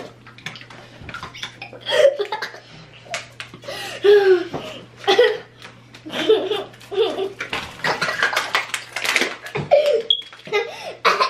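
Several people gulping water from plastic bottles as fast as they can, with gurgling and sloshing, broken up by giggles and laughter.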